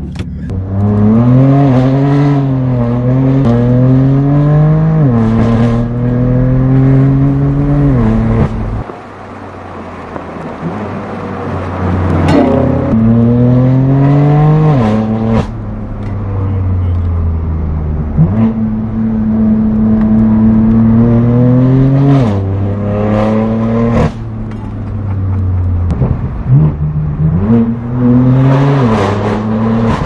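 BMW M4 F82's twin-turbo straight-six through a straight-piped AWE Track exhaust, heard from inside the cabin, pulling hard up through the gears. The pitch climbs and drops suddenly at each shift, with stretches of steadier cruising in between and sharp cracks at several shifts and lifts.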